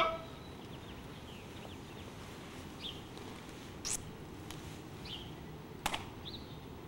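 Quiet open-air hush with a few faint, short bird chirps, and a single sharp click a little before the end.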